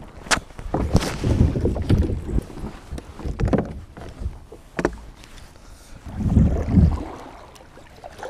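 A kayak being paddled: the double-bladed paddle's strokes swishing and splashing through the water, with several sharp knocks against the kayak.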